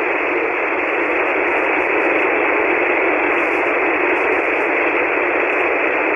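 Steady hiss of band noise from an SSB ham radio receiver tuned to the 40-metre band, cut off sharply below and above the receiver's narrow voice passband, with no station talking. A few faint ticks sound over it.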